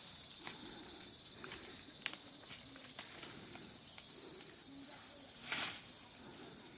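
Insects chirping in a steady, high, pulsing chorus, with scattered faint clicks and a brief rustling swish about five and a half seconds in.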